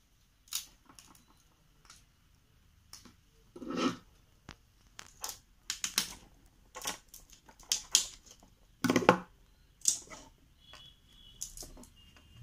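Irregular sharp clicks and cracks as fully dried, hard-shelled golden shower (Cassia fistula) seed pods are cut and broken open with pruning shears. Two louder cracks come about four and nine seconds in.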